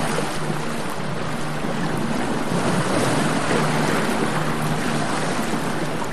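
Steady rushing of wind over the microphone outdoors, with a faint low hum coming and going beneath it.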